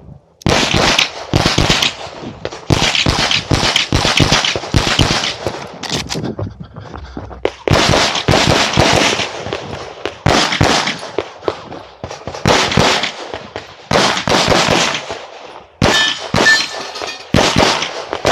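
A CZ Shadow 2 9mm pistol fired in rapid strings of several shots a second, with short pauses between strings as the shooter moves between positions, during a timed USPSA stage run.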